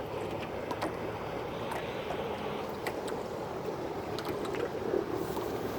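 Steady noise of a fishing boat out on the water, with a few faint ticks through it.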